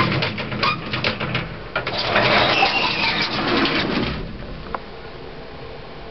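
Old lift running: a run of clicks and knocks, then a rushing noise with a faint gliding whine, settling after about four seconds into a quieter steady hum broken by a single click.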